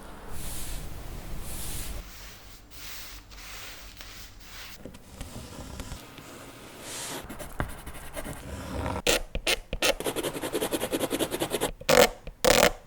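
Scraping and scratching of printmaking tools working a plate or paper. It starts as softer rubbing and grows, from about halfway through, into a rapid run of loud, scratchy strokes.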